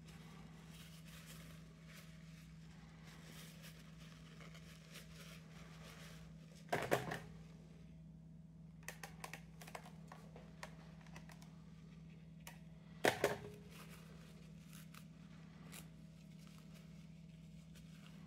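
Paper tissue rustling and crinkling as it is twisted and rubbed against a plastic portable CD player. Two short bursts of clattering knocks stand out, about seven and thirteen seconds in, and a steady low hum runs underneath.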